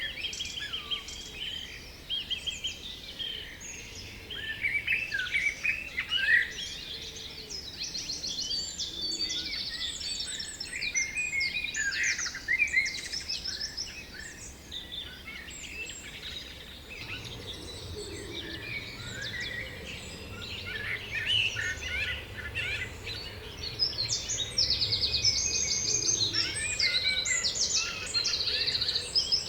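Several songbirds singing at once in a dense spring chorus of overlapping trills, warbles and chirps. A faint low rumble runs underneath from about halfway through.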